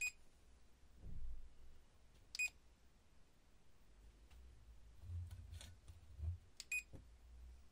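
Short electronic beeps from a 4D green-line laser level as its buttons are pressed: one at the start, one about two and a half seconds in, and a quick double beep near the end. Low bumps from the unit being handled come in between.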